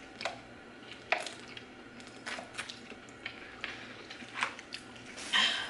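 Drinking from thin plastic water bottles: scattered short clicks and crackles of the bottles being handled and squeezed, with gulping, and a louder short rush of breath-like noise near the end.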